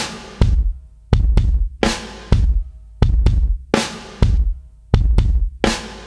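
Channel intro music: a drum-kit beat of heavy bass-drum strokes, each with a bright cymbal splash that dies away, in a steady rhythm of about two strokes a second.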